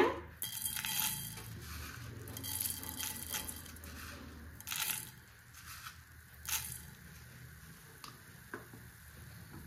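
Whole coriander seeds tipped into a pan with a little sesame oil and stirred for dry-roasting: irregular dry rustling and scraping, in bursts that come and go, loudest about a second in and again around five seconds in.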